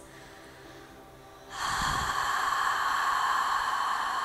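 A woman's long, steady open-mouthed exhalation onto her raised palm, a breathy "haaa" as when fogging a glass, starting about one and a half seconds in after a quiet start. It is the open-mouth form of the audible throat breath used in Ashtanga practice.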